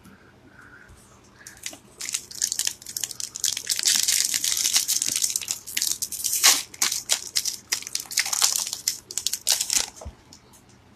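Magic: The Gathering Zendikar Rising booster pack's foil wrapper being crinkled and torn open by hand. A dense crackling crinkle with sharp snaps starts about two seconds in and lasts about eight seconds.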